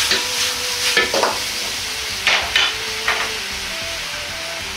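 Pork slices in ketchup sauce sizzling in a wok over a gas flame, as a metal wok ladle scrapes and tosses them to coat the meat in the sauce. There are about five quick strokes in the first three seconds, then a steady sizzle.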